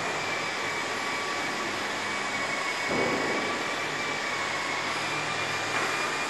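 Canister vacuum cleaner running steadily, its motor giving a constant high whine over the rush of air, while the floor nozzle is worked over the floor.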